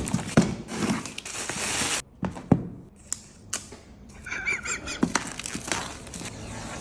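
Unboxing handling noise: plastic wrap crinkling and tearing for about a second, a few sharp knocks against the packaging, and a brief wavering squeak near the middle.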